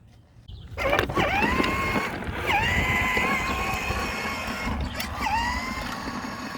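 A small petrol lawnmower engine starts up abruptly about a second in and keeps running, its pitch dipping and recovering three times as it bogs under load.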